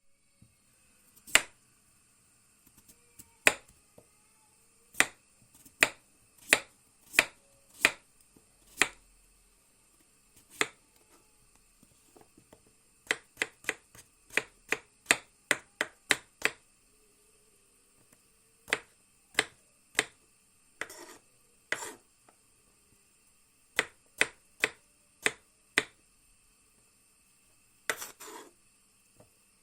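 Kitchen knife chopping vegetables: sharp knocks of the blade, sometimes single and spaced out, sometimes in quick runs of about three a second. A few longer, drawn-out strokes come about two-thirds of the way through and again near the end.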